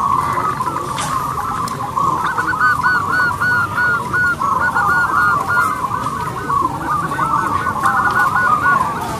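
Zebra dove (perkutut) cooing: a continuous run of short, arched cooing notes that grows stronger and denser about two seconds in.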